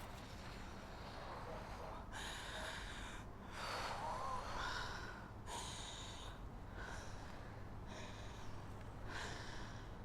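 A person breathing heavily and unevenly, drawing and releasing a breath every second or so.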